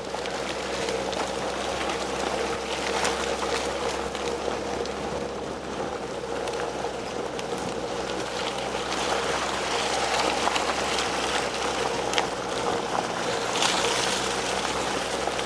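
Car driving slowly along a wet, muddy dirt road, heard from inside the cabin: steady engine running under tyres sloshing and splashing through mud and puddles, with scattered small knocks and spatters. Two louder splashing hisses come around ten seconds and fourteen seconds in.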